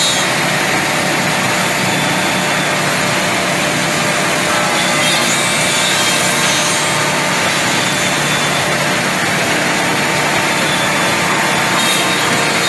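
Woodmaster WM-200B double-end CNC tenoning machine running, its spindle cutters machining tenons in wood blanks: a loud, steady, dense noise of cutters in wood.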